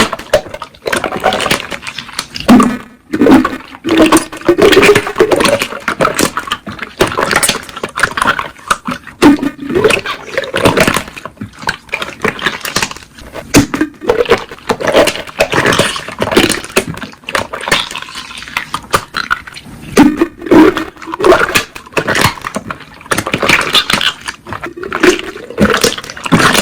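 Slime being squeezed and stretched by hand: wet squelching broken by many small sharp pops and clicks as air bubbles burst.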